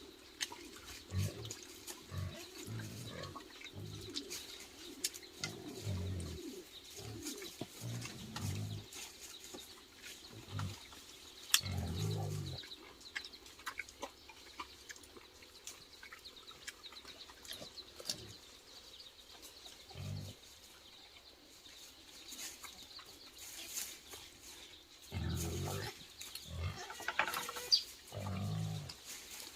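Short low animal calls in an irregular series, mixed with a few high bird chirps.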